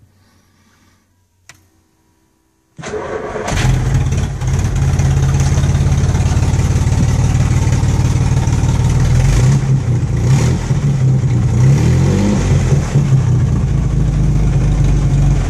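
Vintage Bentley's engine being started: quiet at first, then about three seconds in the starter turns it over briefly and it catches, running loud and steady, with its pitch wavering a little as it is revved near the two-thirds mark.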